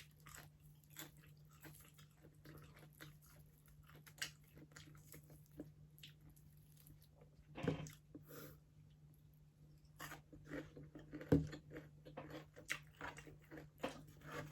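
Close-up eating sounds of crispy pata (deep-fried pork leg): faint chewing and biting with scattered small crunchy clicks, and two louder clicks about halfway and about two-thirds of the way through.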